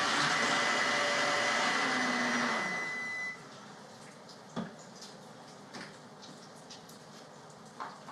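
Countertop blender running loudly, its motor winding down and stopping about three seconds in. After it stops come a few sharp clicks and knocks from the counter.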